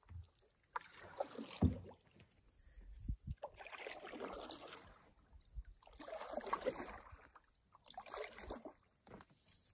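Canoe paddle strokes in calm river water: a swish and trickle of water with each stroke, coming in about four or five swells a second or two apart, with a couple of dull low thumps.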